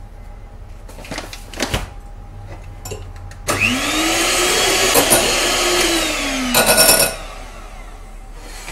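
Electric hand mixer whipping egg whites with sugar: a few light knocks, then about three and a half seconds in the motor starts, its pitch climbing as it speeds up, runs steadily for about three seconds, and slows and stops with a short rattle.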